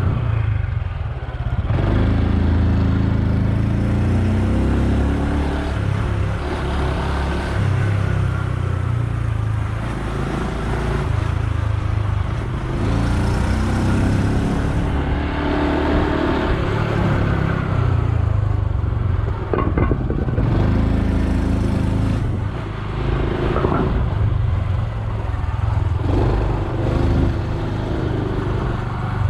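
Honda Super Cub C125's single-cylinder engine running on the move, its pitch rising and falling as it speeds up and eases off several times.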